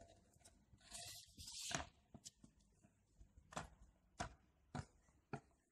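Faint, sharp clacks of a freestyle stunt scooter's wheels and deck on asphalt, about five spread over a few seconds, with a brief hiss about a second in.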